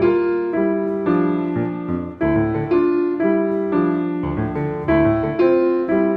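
Piano music: sustained chords with new notes struck about every half second.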